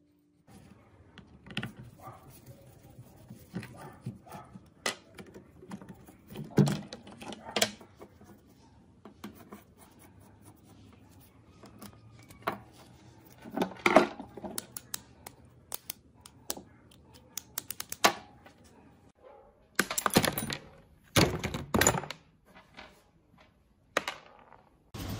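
Electric hammer drill being taken apart by hand: scattered clicks, knocks and scrapes of its plastic housing, screws and trigger switch being handled, with a louder knock about halfway through. A few longer rattling clatters come near the end.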